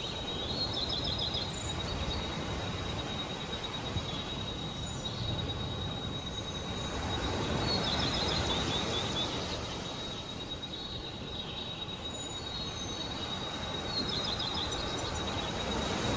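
A songbird singing the same short, quick phrase three times, about six to seven seconds apart, over a steady rushing background noise and a thin, constant high-pitched tone.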